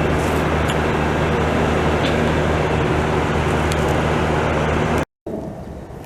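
Loud, steady traffic roar with a low engine drone underneath. It cuts off abruptly about five seconds in, and quieter traffic noise follows.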